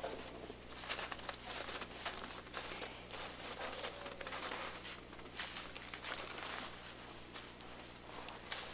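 Faint, irregular crunching and rustling of feet in deep fresh snow, over a low steady hum.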